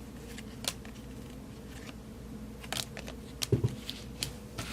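Baseball cards and packs being handled: scattered light clicks and taps of card stock, with a soft thump about three and a half seconds in.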